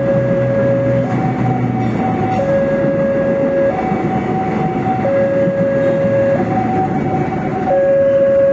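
KRDE diesel-electric multiple unit passing close by with a steady running rumble, over a level-crossing warning alarm that alternates between a low and a higher tone about every 1.3 seconds while the train goes through.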